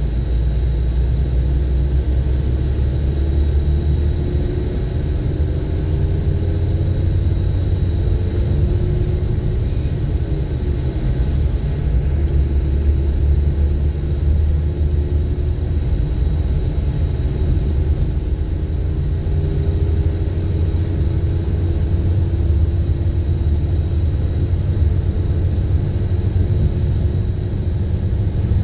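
Steady low rumble of a moving road vehicle heard from inside its cabin: engine and tyre noise, with a faint whine that slowly drifts up and down in pitch.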